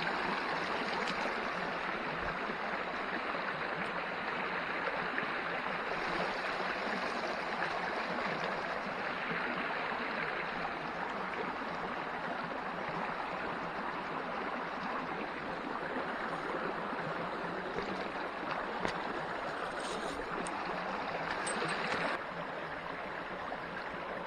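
Water of a small trout creek running, a steady rushing hiss; it gets a little quieter near the end.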